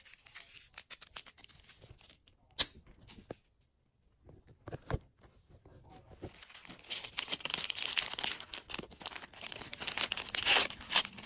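Thin plastic wrapper from a Miniverse capsule being crinkled and torn by hand. A few light clicks and taps come first, then the crinkling builds from about six seconds in and is loudest near the end.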